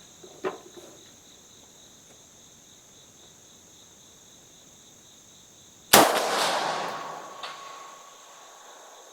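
A single shot from an AK-74 rifle firing 5.45×39 mm 7N6 military ammunition about six seconds in, sharp and then trailing off in a long echo. Before it, a steady high insect chirring carries on, with two faint clicks near the start.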